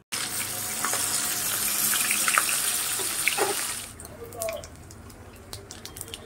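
Hilsa fish pieces frying in hot oil in a kadai: a loud, steady sizzle. About four seconds in it drops to a quieter crackle of bubbling oil with scattered pops.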